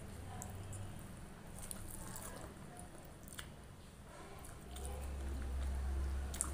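Fingers squishing rice and curry together on a steel plate, with small scattered clicks, then a handful taken into the mouth and chewed. A low rumble comes in about five seconds in.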